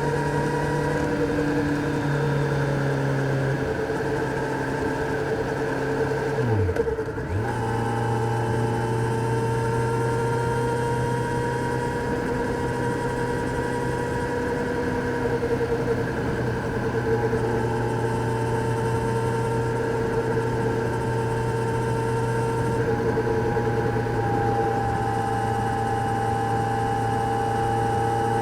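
Kawasaki Z900's inline-four engine running at a steady cruise under way. About seven seconds in the note breaks briefly for a gear change and comes back lower, as after an upshift.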